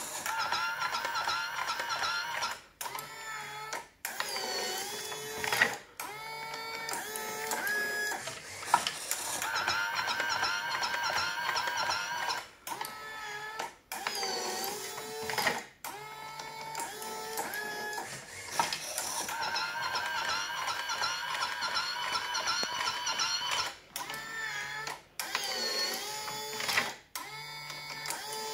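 Motorised cigarette-tube filling machine (a converted Powermatic 3 Plus) running through its automatic cycle. Its motors whine, gliding up and down in pitch, with short breaks every few seconds as each tube is filled and ejected.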